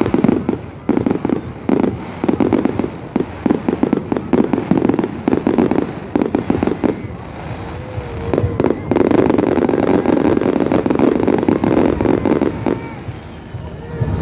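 Fireworks going off: rapid bangs and crackling, thickening into a dense continuous crackle from about nine seconds in until nearly thirteen.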